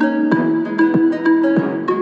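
Instrumental chill-beat background music with a steady beat under a melody.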